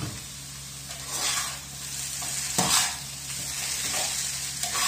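Diced potatoes with chorizo and sliced sausage sizzling in a frying pan while a spatula stirs them, with louder scraping strokes about a second in, near the middle and near the end.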